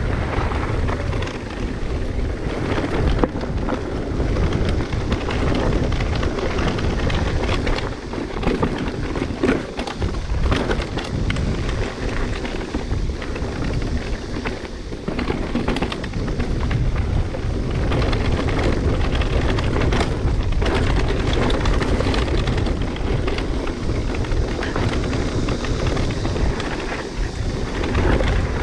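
Wind rumbling on the microphone of a riding mountain bike while the bike rattles over rough trail, with frequent short knocks from bumps.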